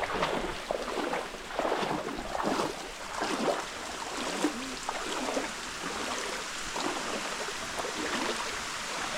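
Shallow waterfall stream water splashing and sloshing over rocks, in uneven splashes that come more often in the first half.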